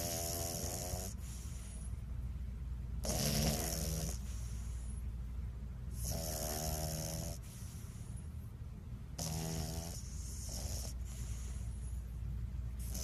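Bulldog snoring in its sleep: about five snores, each lasting roughly a second and coming about every three seconds, over a steady low hum.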